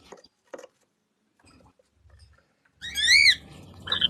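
A parrot gives a loud whistled call that slides up and then down, about three seconds in, followed by a shorter squawk just before the end; before it there are only a few faint ticks.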